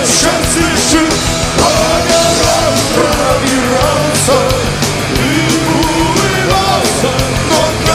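Punk rock band playing live: distorted electric guitars, bass and drums, with a male voice singing and shouting over them.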